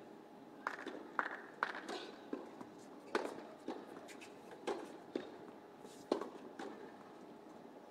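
Tennis rally on a hard court: a tennis ball struck by rackets and bouncing, a series of sharp pops every half second to a second or so, with the last ones about six and a half seconds in.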